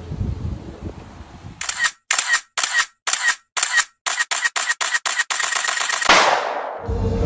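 Edited-in transition sound effect: after a low rumble, a run of short sharp clicks cut apart by dead silences, coming faster and faster, then a falling whoosh that leads into music near the end.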